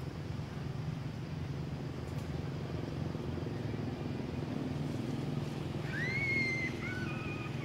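A baby macaque calls about six seconds in: a high call that rises, then holds its pitch for under a second, followed by two shorter, lower calls. A steady low hum runs underneath.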